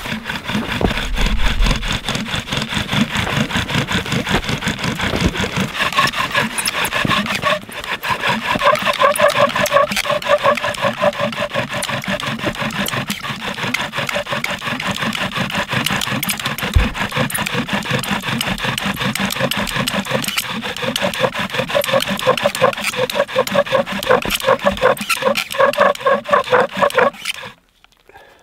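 Bow drill being worked hard: a cedar spindle spun back and forth by the bow's cord in a cedar hearth board, squeaking and grinding with each stroke as the socket is burned in, stopping abruptly near the end. The bowstring is stretched and wet and slips on the spindle.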